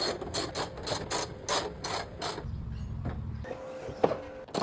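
Hand ratchet wrench clicking in quick, even strokes, about four a second, tightening bolts. About halfway through the clicking pauses under a brief low rumble.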